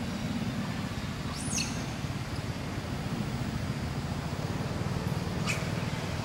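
Steady low outdoor rumble, like distant traffic, with two short, high chirps falling in pitch, one about a second and a half in and one near the end.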